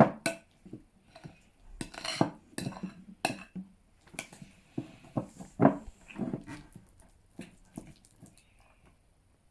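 A spoon stirring glue slime in a bowl as the activator thickens it: irregular scrapes and clinks of the spoon against the bowl.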